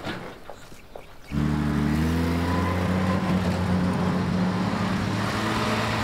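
Old wartime lorry engine starting up suddenly about a second in, then running steadily with a deep, even drone.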